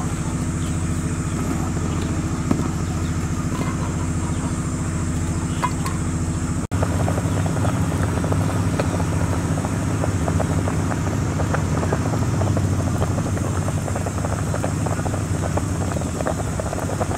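A motor hums steadily and low throughout. After a cut about seven seconds in, the dense bubbling of fish boiling hard in a pot of water joins it.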